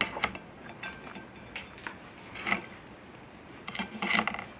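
Pieces of cornbread set down on a pewter plate: a few short taps and clinks on the metal, once at the start, once about halfway, and a busier run just before the end.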